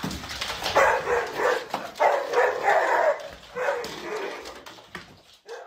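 A dog barking, a string of short barks and yips roughly a second apart that grow fainter toward the end.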